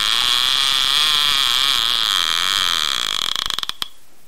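Fishing reel ratchet clicking very fast, slowing to a few separate clicks and stopping about three and a half seconds in.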